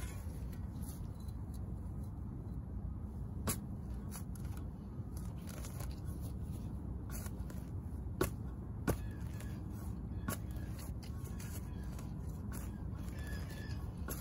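Garden spade chopping into lawn turf and prying up sod, roots tearing, with a few sharp knocks of the blade, the two loudest close together a little past the middle. A steady low rumble lies under it.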